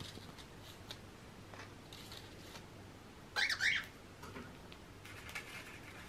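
Cockatiel gives one short chirp with two quick up-and-down sweeps about halfway through, among faint light clicks and rustles as it picks at a paper egg-carton foraging toy stuffed with shredded paper.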